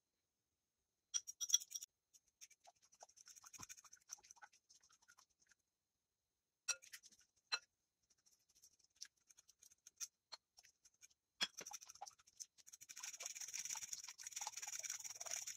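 Faint clicks and scrapes of a metal fork against a ceramic ramekin and a glass mixing bowl as eggs are scraped out. Near the end, a fork beats the eggs quickly in the glass bowl, a fast, steady scratching clatter.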